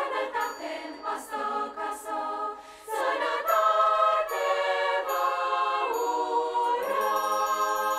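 Children's choir singing in parts: short, detached notes for the first few seconds, then long held chords, settling on a sustained chord near the end.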